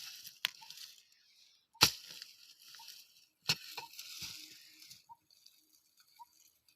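Soil and potato plants rustling and crunching as potatoes are dug up, with a few sharp knocks, the loudest about two seconds in; it thins out after about five seconds.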